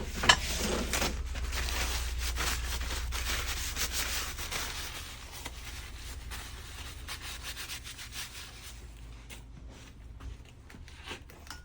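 Greasy hands being wiped clean, a steady rubbing that fades out about nine seconds in, with a sharp click just at the start.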